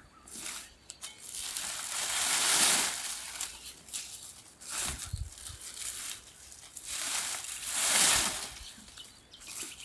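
Dry, frost-killed bottle gourd vines rustling and crackling as they are torn and dragged off a trellis. The noise comes in several long swells, loudest about two and a half seconds and eight seconds in.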